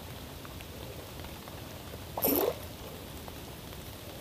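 Steady rain hissing on the river surface. About two seconds in comes one short, whining vocal sound, a man's brief strained exclamation while fighting a fish.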